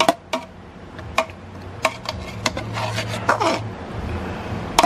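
Metal spoon scraping and clinking against the side of a large metal cooking pot as cooked biryani rice is scooped up from the side, with about half a dozen sharp clinks spread out and a last one near the end.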